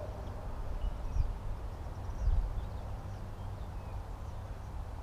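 Uneven low rumble of wind on the microphone, swelling in gusts about one and two seconds in, with a few faint bird chirps.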